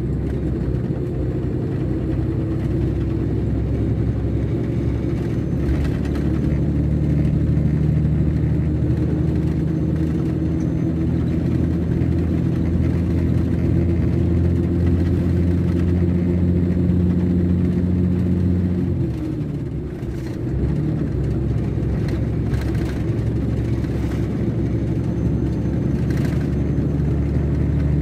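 Scania K420 coach's rear-mounted six-cylinder diesel engine running steadily under way. About two-thirds of the way through its note falls and the level dips briefly, then the engine picks up again at a slightly lower pitch.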